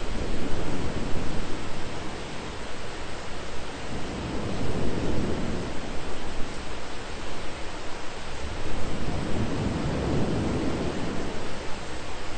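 Thunderstorm ambience: a steady hiss of rain with low rumbles that swell and fade every few seconds.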